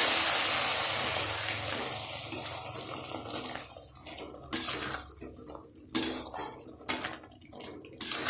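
Hot ghee sizzling in a stainless steel kadai, fading away over the first few seconds. Then a spoon stirs fried cashews into the thick pumpkin halwa, with several separate scrapes and knocks against the steel pan.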